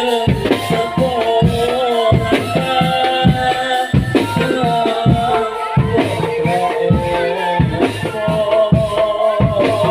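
Drum band music: a wavering melody over a steady beat of drum strikes and rattling percussion.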